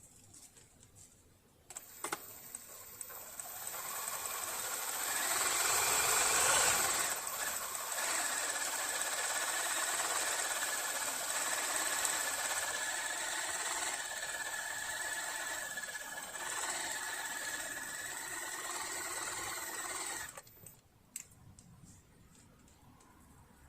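Riccar Bernina Holidayne 1090 household sewing machine running under its motor, being worked to free its seized, freshly oiled mechanism. It starts with a click about two seconds in, speeds up over a few seconds and runs steadily with a light whine. It stops a few seconds before the end.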